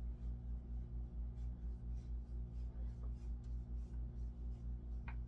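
A saw-handle screw being fitted by hand into a wooden handsaw handle: faint light scraping and ticking, with one short click about five seconds in. Under it runs a steady low hum that pulses about five times a second.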